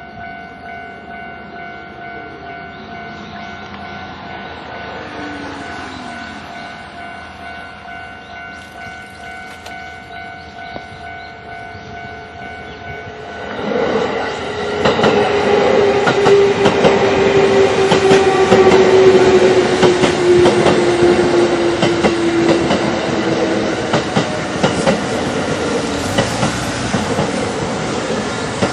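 Japanese level crossing alarm ringing steadily with its repeating two-tone clang. About 13 seconds in, an electric train arrives and runs over the crossing loudly, its wheels clattering over the rail joints. Under the clatter a long tone falls slowly in pitch as it passes.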